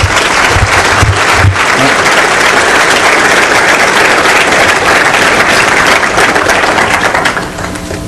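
An audience applauding in a lecture hall, a dense run of many hands clapping that dies away near the end.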